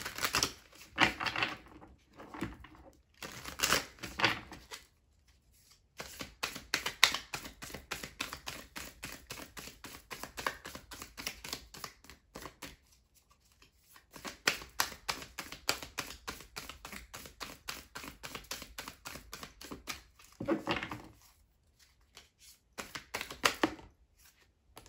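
A deck of tarot cards being shuffled by hand: long runs of rapid card clicks, lasting several seconds each, with shorter swishes at the start and near the end as the deck is cut and handled.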